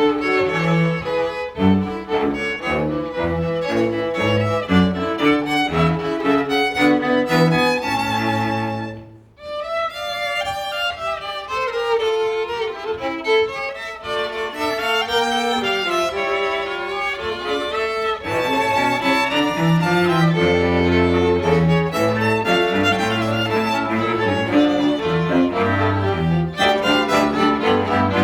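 Bowed strings playing a piece, violin leading over cello, with short repeated low notes underneath; the music drops out briefly about nine seconds in and then resumes.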